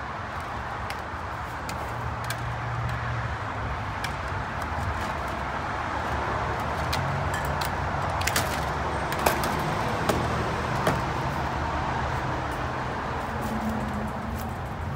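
Side cutters snipping through rain-gutter leaf-guard mesh: irregular sharp clicks, roughly one every second or so, the loudest about nine seconds in, over a steady background rumble.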